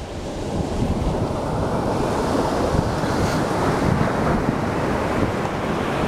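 Ocean surf breaking, with wind rumbling on the microphone; the noise swells about a second in and then holds steady.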